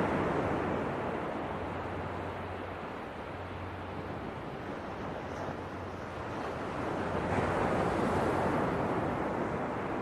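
Ocean surf breaking and washing in as a wide rushing noise. One wave surges at the start and slowly subsides, and another builds and breaks about seven seconds in.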